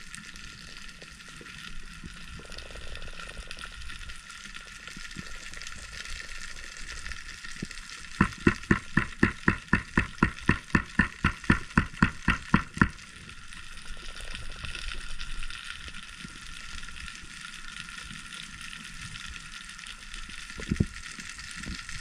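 Underwater ambience: a steady crackling hiss. From about eight seconds in, a run of sharp, evenly spaced clicks, about four a second, lasts some five seconds, and a single thump comes near the end.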